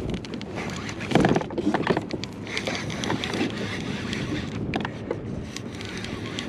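Kayak on open water: wind on the microphone and water moving against the hull, with scattered clicks and two louder knocks about one and two seconds in.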